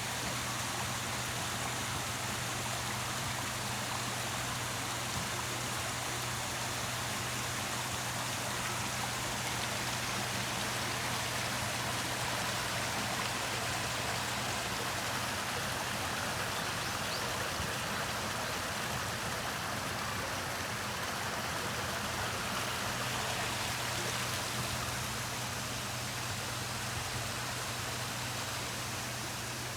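Water falling steadily over a small park waterfall, an even rushing and splashing, with a steady low hum beneath it.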